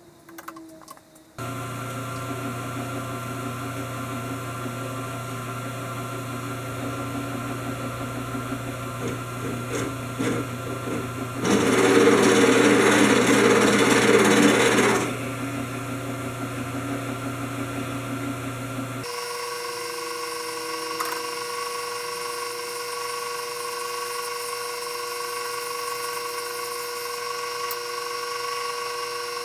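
Milling machine running while reaming transmission bushings held in a fixture: a steady motor hum with several steady tones. A louder, rougher stretch lasts about three and a half seconds, from about 11 seconds in, and the tone shifts to a higher, different set of steady pitches about 19 seconds in.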